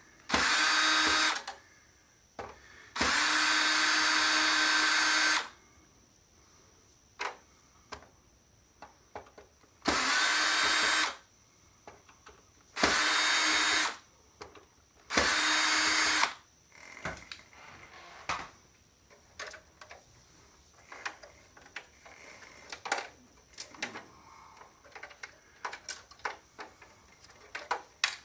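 Cordless drill-driver motor running in five short bursts of one to two seconds each, backing screws out of an electronic device's case. After the bursts come scattered light clicks and clatter of parts and screws being handled.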